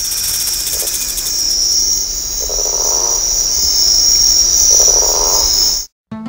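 Crickets chirping in a steady high-pitched trill, with two lower calls about two seconds apart. The chirping cuts off suddenly near the end and plucked-string music begins.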